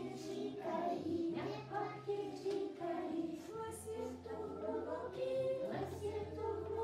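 Children singing a song over a recorded backing track with a steady bass line.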